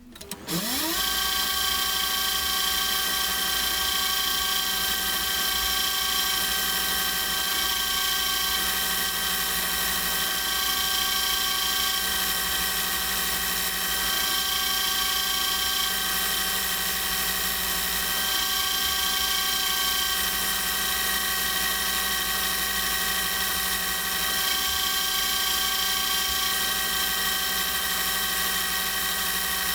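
Emco V10-P lathe spinning up with a rising whine about half a second in, then running steadily, its motor and gearing giving a steady many-toned whine.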